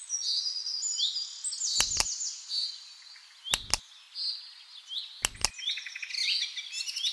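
Songbirds chirping in many short, quick, falling chirps, with three sharp double clicks, like mouse clicks, about a second and a half to two seconds apart.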